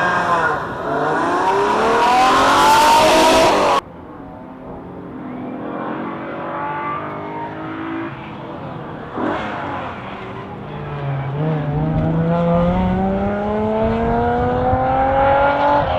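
Alfa Romeo GTV6's V6 engine revving hard, its note climbing repeatedly. After an abrupt cut to a duller, muffled recording, the engine pulls from low revs with a long, steady rise in pitch through the second half.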